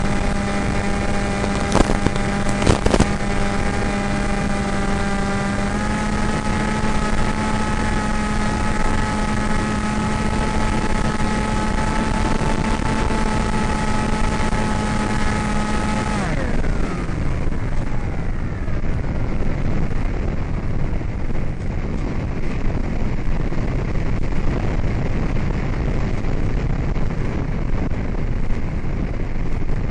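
AXN Floater RC plane's electric motor and propeller running with a steady whine, stepping slightly higher about six seconds in. A little past halfway the throttle is cut and the motor winds down in pitch, leaving wind rushing past as the plane glides down toward the grass to land. Two brief clicks near the start.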